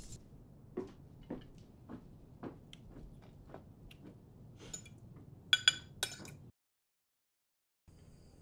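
Cutlery tapping on plates at a meal, small clicks about every half second, then two sharper ringing clinks of tableware about five and six seconds in. The sound then cuts to dead silence, and faint steady crickets begin near the end.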